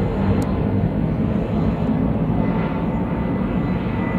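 Airbus A319 airliner's CFM56 turbofan engines at climb power just after takeoff, a steady low-pitched jet noise with a faint high whine as it passes overhead.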